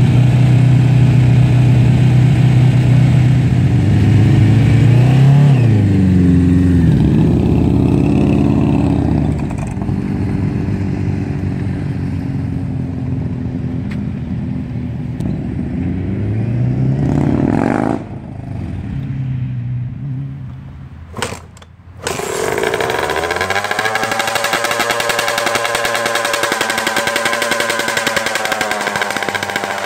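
A Suzuki Katana 600 and a Victory Judge V-twin motorcycle pulling away, their engine notes rising and dropping through gear changes and fading as they ride off. After a cut, a KTM 125 SX two-stroke dirt bike engine runs steadily, its pitch rising briefly at first.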